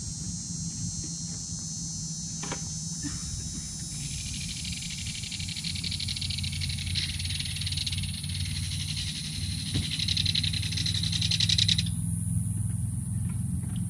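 Insects buzzing in a high, finely pulsing drone that swells from about four seconds in and cuts off sharply near the end, over a steady low hum.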